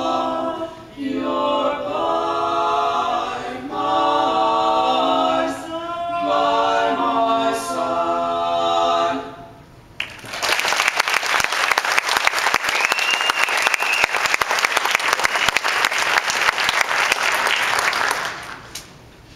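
A high-school male barbershop quartet singing a cappella in close four-part harmony, finishing a song about nine seconds in. The audience then applauds for about eight seconds before the clapping dies away near the end.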